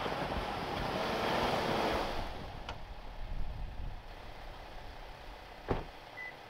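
Toyota Tundra pickup working its way out of soft snow on Maxtracks traction boards, engine and tyres loud for the first two seconds, then easing off. Two sharp knocks come later, one a little under halfway in and one near the end.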